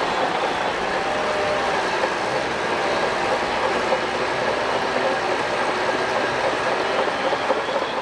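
Shantui DH17 crawler bulldozer pushing sand: steady engine noise with the clatter of its steel tracks and a faint wavering squeal from the undercarriage.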